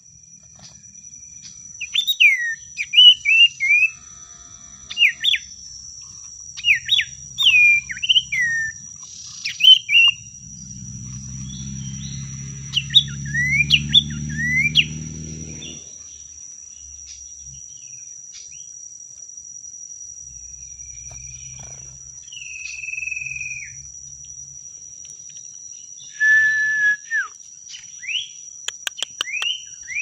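Common iora calling: clusters of short, sharp whistled notes that sweep down in pitch, then a longer, slowly falling whistle about two-thirds of the way through and a short held note near the end.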